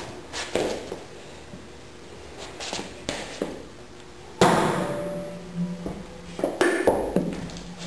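A heavy steel tractor brake drum assembly, shaft and all, dropped end-first onto a hardwood block. It lands about halfway through with a heavy thud and a ringing metallic tail, and a couple more sharp knocks follow near the end. Each impact hammers the shaft end to jar the seized brake drum loose from the shaft.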